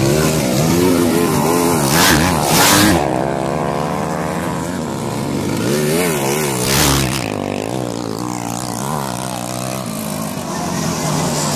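Motocross dirt bike engines revving, their pitch rising and falling again and again as the throttle is worked through the corners, with two louder rushes of noise about two and six seconds in.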